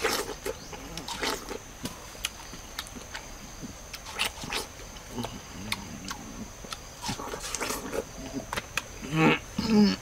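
A person biting into and chewing juicy watermelon: a string of short wet crunches and slurps. Near the end come a few short throaty mouth sounds.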